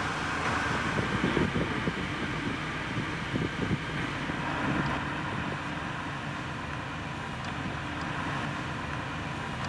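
Car driving along, a steady run of engine and road noise, with some uneven low rumbling during the first few seconds.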